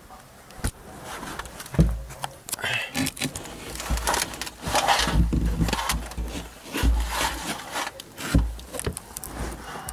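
A person crawling and shifting around in a cramped crawl space: scuffing, scraping and irregular heavy thumps, with knocks and rubbing from the handheld camera close to the microphone.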